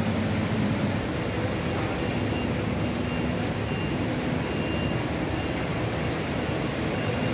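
Steady rushing background noise with no distinct events and a few faint steady tones in it.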